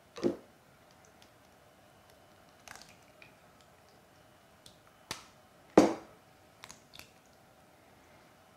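Two fresh hen's eggs being cracked open one after the other. Sharp cracks of the shells, one right at the start and the loudest about six seconds in, with a few lighter clicks between.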